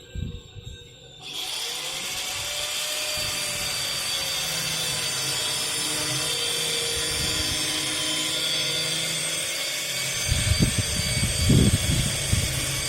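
Electric power tool starting about a second in and running steadily with a high hiss, with heavy knocks near the end.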